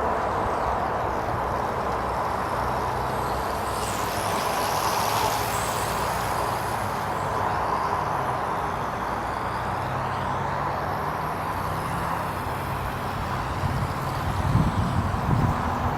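Dromida Vista quadcopter's electric motors and propellers buzzing steadily in flight, with a steady high hum. Wind buffets the microphone in low gusts near the end.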